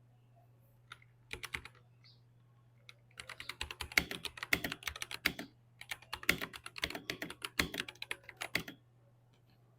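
Typing on a Royal Kludge RK96 mechanical keyboard: a few scattered key clicks, then two quick bursts of rapid keystrokes separated by a short pause.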